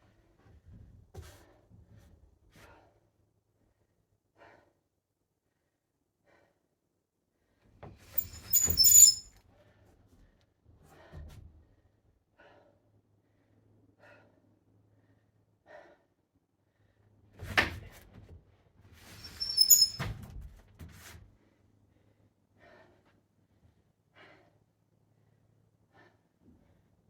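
Scattered knocks and thumps, with two louder bursts of sharp clattering knocks, one about a third of the way in and another about two-thirds in.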